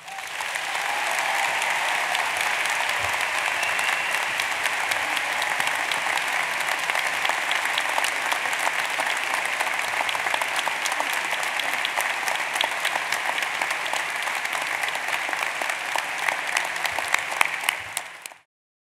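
A large audience applauding, dense and steady, cut off abruptly near the end.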